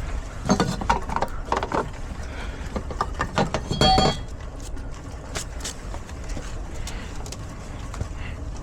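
Hand tools and metal parts clicking and clanking in two short bursts while the outdoor AC unit's wiring is worked on, one bright metallic clink ringing briefly about four seconds in, over a steady low rumble.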